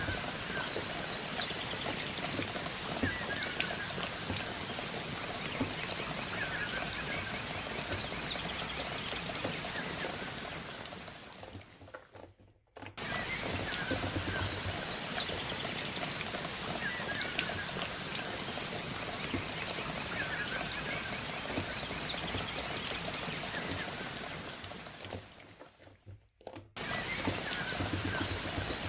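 Steady rain-like water ambience with many light patters, faint chirps and a thin high tone. It fades out about 12 seconds in, restarts, and fades out and restarts again near the end, as a repeating sound-effect loop.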